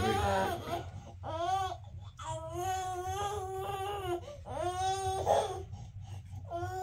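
Infant crying: a string of drawn-out wails, each rising and then falling in pitch, with short breaks for breath between them.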